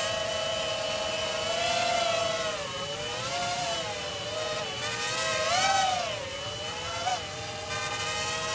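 Small FPV quadcopter's motors and propellers whining as it hovers in altitude and position hold, the pitch swelling and dipping several times as the flight controller corrects.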